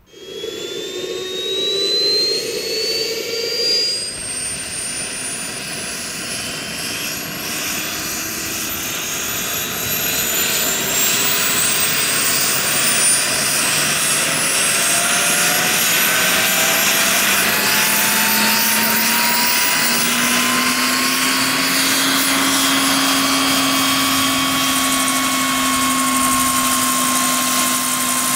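Gas turbine of a scale Sikorsky S-64 Skycrane RC model helicopter running up on the ground, with its rotors turning. A high turbine whine climbs steadily in pitch for about twenty seconds, then holds steady.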